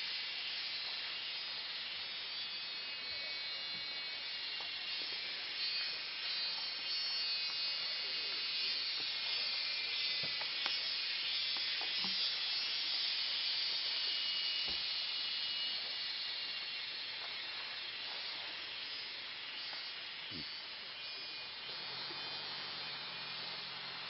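Forest insect chorus: a steady, high hiss made of many thin, shrill tones, with a few faint snaps scattered through it.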